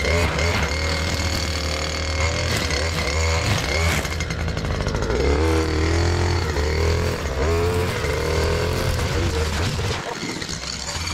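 Ferris ISX800 zero-turn mower running while mowing: a steady engine drone whose pitch wavers up and down as the load changes, with a thin steady whine above it.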